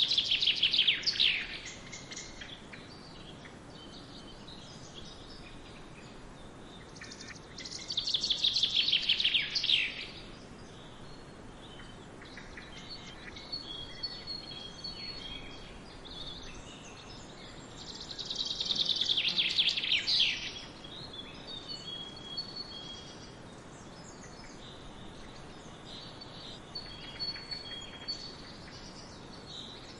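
Birds singing: a loud, fast trill that falls in pitch over about two seconds, given three times about ten seconds apart. Softer, short high chirps from other birds come between the trills.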